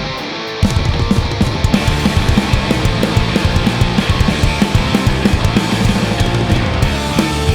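Punk/indie rock band playing live in an instrumental passage: electric guitars, bass and drums. A held chord rings for about half a second, then the full band comes back in hard with busy, driving drumming.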